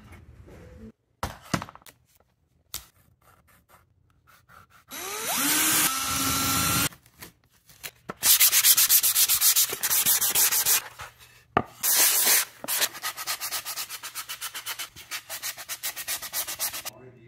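Sandpaper rubbed by hand over a wooden clock plaque in quick back-and-forth strokes, loudest in two runs of strokes and then a steadier rhythmic rasp. Earlier there are a few clicks and a whine that rises in pitch and holds for about two seconds.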